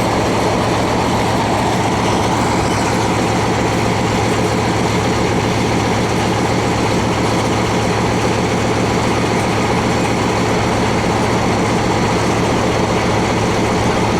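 A large engine running steadily at constant speed, with a fast, even low throb and no change in pace.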